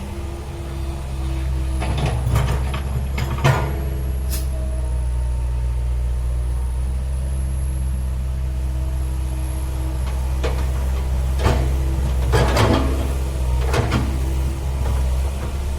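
Heavy diesel machinery engine running steadily at a low, even pitch, with short clanks and rattles that come in clusters about two to three and a half seconds in and again around twelve to fourteen seconds in.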